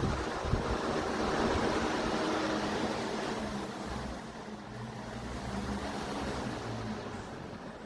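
Electric fan running, with air rushing over the microphone and a steady motor hum underneath; the rush eases a little midway.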